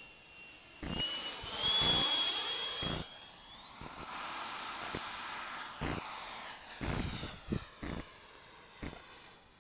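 Large RC model jet flying past with a high engine whine. The whine steps up in pitch about a second and a half in, then glides higher around four seconds in and holds there, over a rush of air that is loudest about two seconds in. Irregular low thumps sound throughout.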